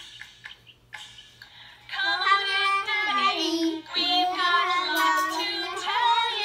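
A young child singing a children's song with a backing track, starting about two seconds in after a short pause.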